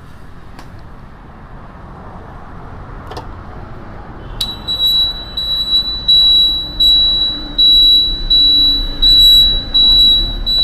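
Electronic beeper sounding a loud, high-pitched repeating beep, about three beeps every two seconds, starting a little under halfway through.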